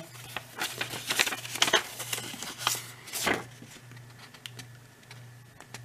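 Paper pages of a small instruction booklet handled and leafed through, rustling and crinkling, busiest in the first three seconds or so and then quieter, over a low steady hum.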